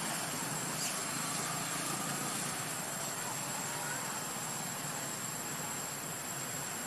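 Steady outdoor background hiss with a thin, constant high-pitched whine, and a few faint short chirps.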